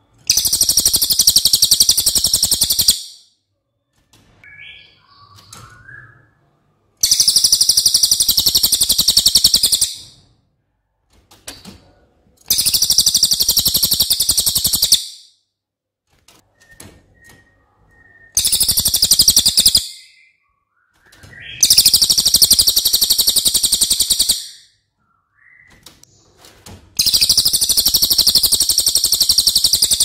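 Cililin bird singing in six long bursts of rapid, tightly packed high-pitched notes. Each burst lasts two to three seconds, with short pauses between: long, dense rapid-fire 'tembakan' phrases.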